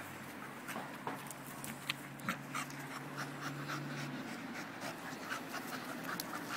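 Staffordshire Bull Terrier puppy panting in a run of short, quick breaths, worn out from play.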